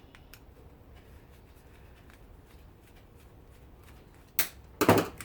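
A screwdriver working the stubborn screws of a small oscillating-fan gear motor, with faint scraping and light clicks of metal on metal. Near the end come two loud sharp clacks, a moment apart.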